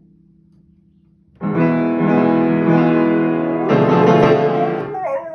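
Piano chords struck and left ringing, a new fuller chord played about two and a half seconds after the first. A dog starts howling along again near the end.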